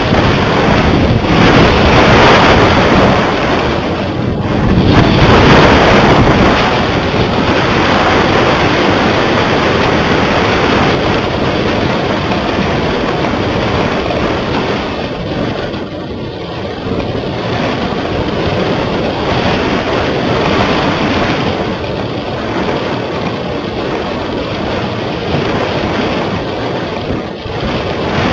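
Loud wind buffeting the microphone of a small camera carried aloft on a kite, a rushing noise that swells and eases in gusts, strongest in the first few seconds.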